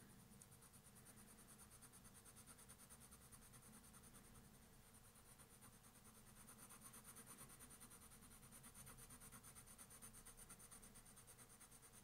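Coloured pencil shading lightly back and forth on paper: a faint, fast, even scratching of short strokes.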